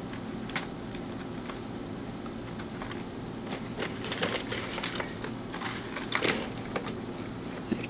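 Hands handling the plastic RC car and its parts: scattered light clicks, taps and crinkles, mostly in the second half, over a steady low room hum.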